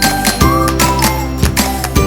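Background music with a steady beat and a tinkling melody.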